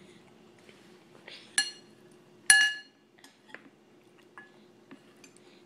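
Metal spoon clinking against a glass bowl: two sharp ringing clinks, about a second and a half and two and a half seconds in, the second the loudest, then several lighter taps.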